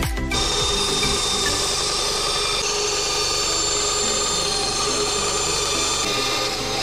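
Benchtop band saw running steadily, its blade cutting through a wooden board.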